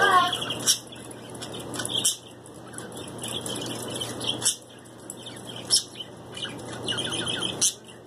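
Small pet parrot chattering steadily, with a sharp short call about every second and a half, while it courts its own reflection in a cage mirror.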